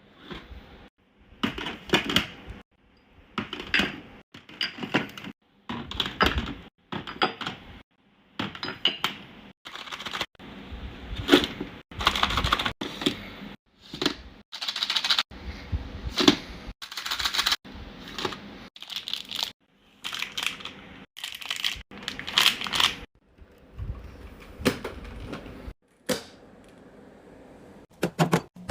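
Restocking sounds: clinks, knocks and clatter of bottles, cans, packaging and plastic bins being handled and set down, in a quick series of short clips that cut off abruptly one after another.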